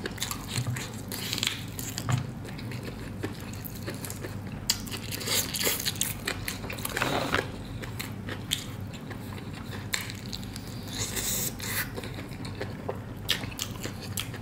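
Close-up sounds of eating a fried chicken drumstick: biting and chewing with crunching of the crisp fried skin and many small clicks and crackles.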